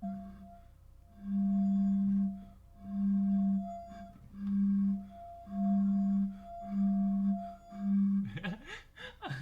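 A low humming tone that swells on and off about once a second, seven times, over a fainter steady higher tone.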